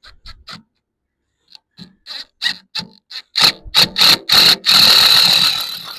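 A hand tool or power tool working the wood of a mailbox post: a run of short strokes that come faster and louder, then merge into one continuous sound for the last second and a half.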